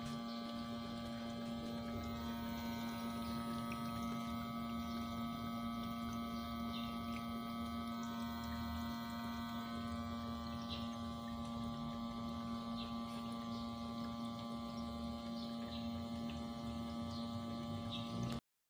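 Homemade gasoline vaporizer stove burning with a low rumble of flame, under a strong steady hum. A few faint ticks, and all the sound cuts off suddenly near the end.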